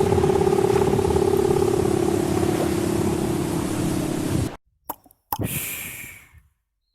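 Cartoon sound effects: a long, loud, steady held tone over rumbling noise cuts off suddenly about four and a half seconds in. A couple of short clicks follow, then a splash into water that fades away.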